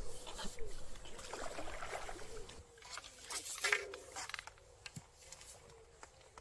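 A hooked fish thrashing and splashing at the surface close to the bank, in a run of bursts that peaks as it is drawn into the landing net, then dies away.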